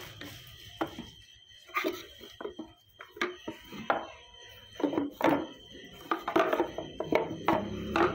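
Irregular clacks and knocks, a few a second, coming thicker in the second half, over a faint steady high tone.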